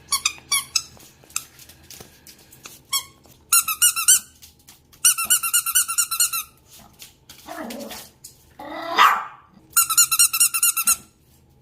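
Rubber squeaky toy squeaked in quick runs of many short high squeaks, three runs in all, with a few single squeaks before them. A louder rising cry comes about eight to nine seconds in.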